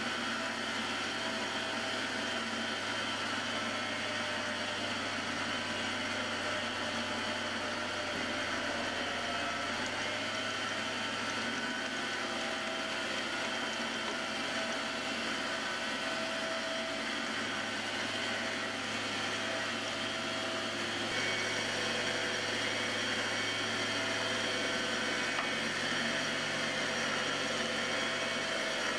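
MX-180D 600 W mini metal lathe running steadily with its motor and gear whine while a drill bit in the tailstock chuck is hand-fed into the spinning workpiece. It gets a little louder about two-thirds of the way through.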